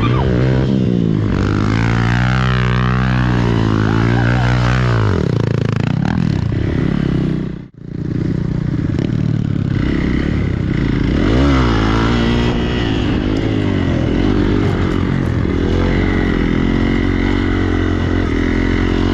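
Hero XPulse motorcycle's single-cylinder engine revving up and down on an off-road run, dropping out abruptly for a moment about eight seconds in before carrying on.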